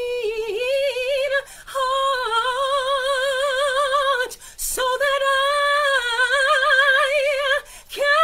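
A woman singing a gospel praise song a cappella, holding long high notes with a wide vibrato and drawing breath three times.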